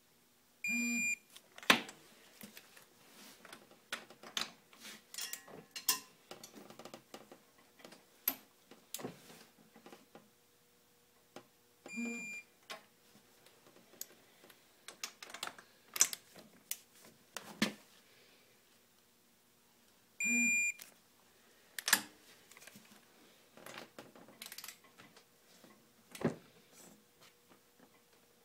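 Torque wrench ratcheting in irregular runs of sharp clicks as the cylinder head nuts of a Honda 300 ATV engine are tightened, with three short electronic beeps, about a second, twelve seconds and twenty seconds in, as the set torque is reached.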